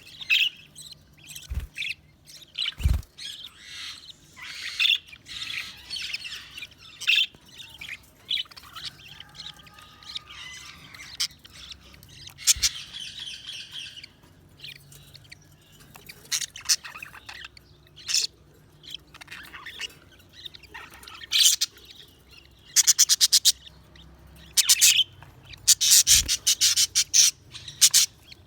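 Budgerigars chirping and warbling in many short, irregular calls, getting into loud, rapid chattering trills in the last several seconds. A couple of dull knocks come about two and three seconds in.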